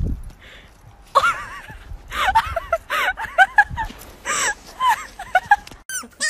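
A dog whining and yelping in a rapid string of short cries that rise and fall in pitch. Right at the end, higher, thinner puppy squeaks take over.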